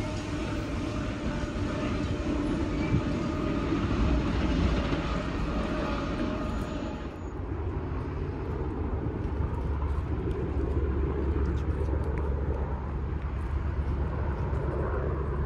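A steady rushing noise cuts off suddenly about seven seconds in. It gives way to the low, steady rumble of a CSX freight train's diesel locomotives approaching from a distance.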